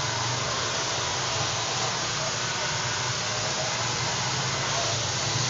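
Handheld hair dryer blowing steadily: an even hiss of air over a low, steady motor hum.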